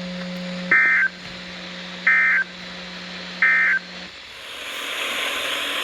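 Emergency Alert System SAME data signal: three identical short bursts of warbling digital tones, about 1.4 seconds apart. This is the end-of-message code that closes a severe thunderstorm warning broadcast. After the third burst, the steady hum stops and radio hiss swells up.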